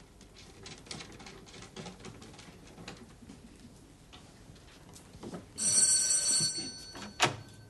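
Faint clicks and taps of hands working at the back of a wooden television cabinet. Then an electric doorbell rings for about a second, followed by a single sharp knock.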